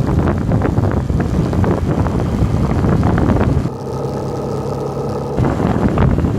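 Wind buffeting the microphone of a bike rushing downhill, with scattered rattling clicks. A little over halfway through, the wind noise dips for about a second and a half and a steady hum with overtones comes through before the rush returns.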